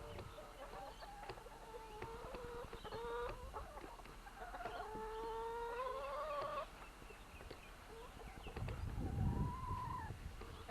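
Backyard hens clucking, with several short calls and one long drawn-out call that rises in pitch about halfway through. A low rumble comes in near the end.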